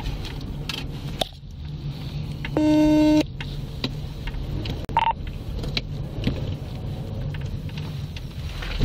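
Steady low engine hum heard inside an idling patrol car's cabin. A loud, buzzing electronic alert tone sounds for about half a second roughly a third of the way in, and a short higher beep follows about five seconds in, with a few small clicks.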